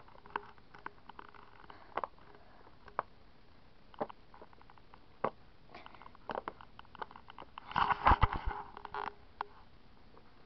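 Bubbles of a silicone Pop It fidget toy being pressed in with fingers: scattered, irregular soft pops and clicks, with a denser, louder flurry about eight seconds in.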